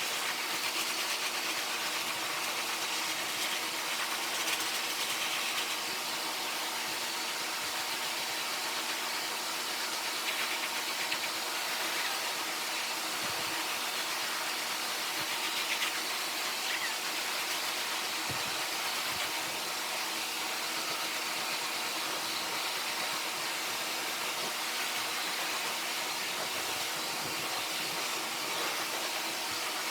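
Dog grooming blow dryer running steadily: a constant rushing hiss of blown air with a faint motor hum underneath, as it blows the water out of a poodle puppy's coat.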